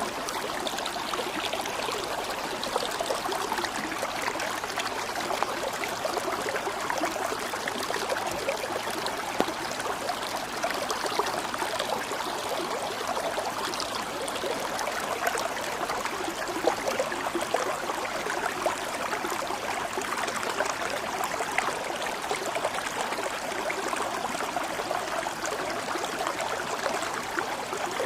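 Water flowing steadily over stones, a stream trickling and splashing.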